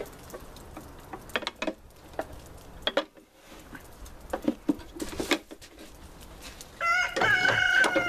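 Light clicks and knocks from the steel hitch plate and plastic winch housing being handled, then about seven seconds in a rooster crows once, a long held call lasting about a second and a half.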